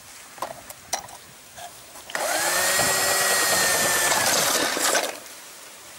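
Small electric motor whirring for about three seconds, spinning up sharply, running steadily, then winding down, after a few light clicks.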